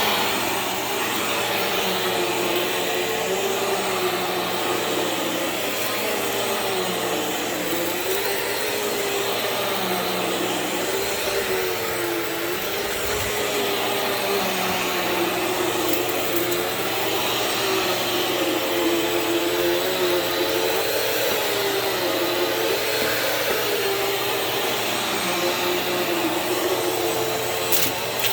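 Bissell CleanView Swivel Pet bagless upright vacuum running steadily on carpet, its motor hum wavering slightly up and down in pitch every couple of seconds.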